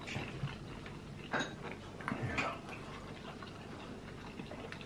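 A person chewing a mouthful of fried egg and flounder close to the microphone: a few soft mouth clicks and lip smacks, mostly in the first two and a half seconds.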